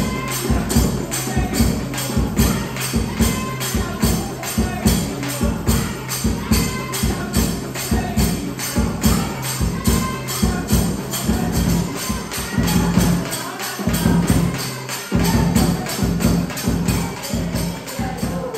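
Soliga folk dance music: hand-beaten drums with jingling percussion keeping a fast, steady beat. The deep drum strokes drop out for about a second around three-quarters of the way through, while the lighter strokes carry on.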